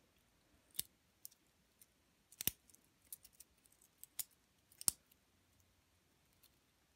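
Space Black stainless steel link bracelet of an Apple Watch being handled, its metal links clicking and clinking. The clicks are faint, sharp and irregular, the loudest two about two and a half and five seconds in.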